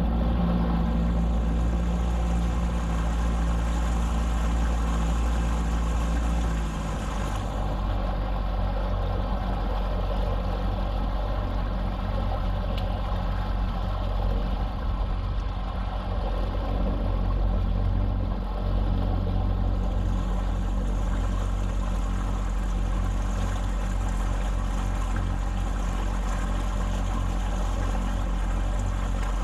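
Boat engine running under way, throttled back about seven seconds in to a lower, steadier note.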